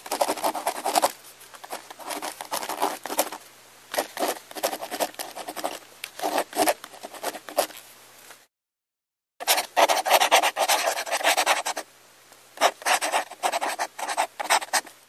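Hands and a screwdriver working on the bare sheet-metal and plastic chassis of a partly dismantled HP LaserJet M1136 laser printer: scraping, rubbing and many small clicks and taps. The sound stops completely for about a second partway through.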